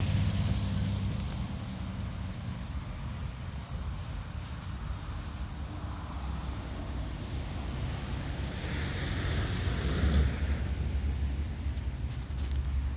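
Wind buffeting the microphone over open outdoor ambience, with a swell of rushing noise about nine to ten seconds in.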